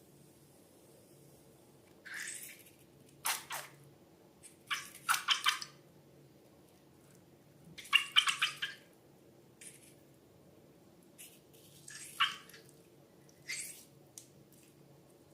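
Slime being squeezed and pressed by hand: short wet squelching, crackling bursts, a few at a time with pauses of a second or two between them.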